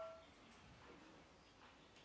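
Near silence: the last of a metallic, bell-like ring dies away in the first moment, then only faint room noise.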